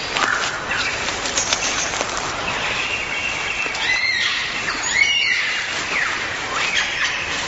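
Birds calling: a busy mix of chirps and short falling notes, with a pair of clear whistles that rise and fall about four to five seconds in.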